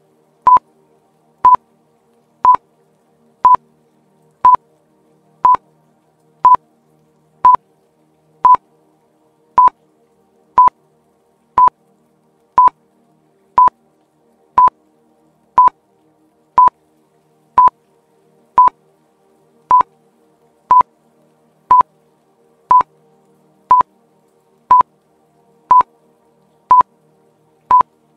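Quiz countdown timer beeping, one short, high, single-pitched beep each second, over faint background music.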